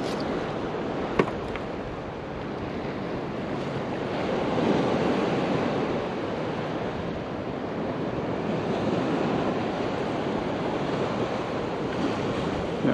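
Ocean surf washing onto a beach, a steady rush that swells as waves break about four seconds in and again around nine seconds. A single sharp click about a second in.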